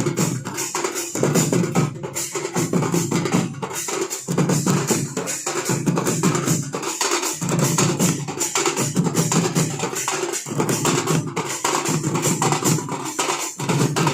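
Gond tribal baja band music: drums beaten in a fast, dense, unbroken rhythm.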